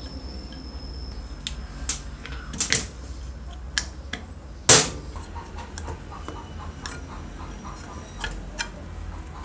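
Small clicks and knocks of plastic and metal parts as the switch and wiring are pressed into an electric drill's aluminium handle housing and the handle shell is fitted on, with a sharp knock about halfway through.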